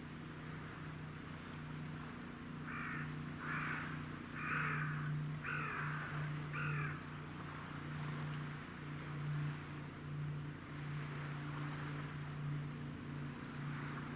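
A crow cawing five times in quick succession, starting about three seconds in, over a steady low hum.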